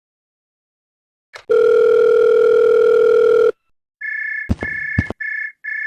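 Cartoon electronic sound effects: a loud, steady buzzing tone held for about two seconds, then a quick run of four short, higher electronic beeps, with two sharp clicks among them.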